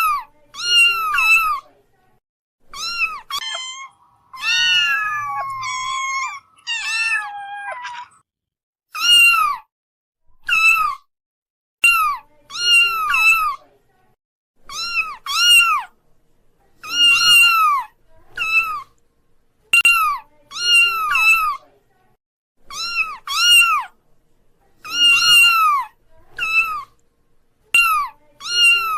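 Kittens meowing over and over: short, high-pitched calls about once a second, with a stretch of longer overlapping calls about four seconds in.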